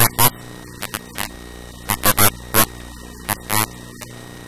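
Steady electrical mains hum, interrupted by several short, scattered bursts of a person's voice.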